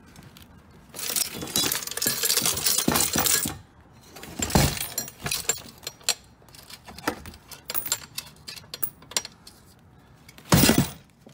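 Coins clinking and rattling as they pour out of a payphone's coin box, with a dense run of jingling early, scattered clinks and metal knocks, and a louder crash near the end.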